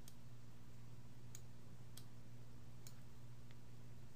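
Five or so faint, irregularly spaced clicks of a computer mouse, over a steady low electrical hum.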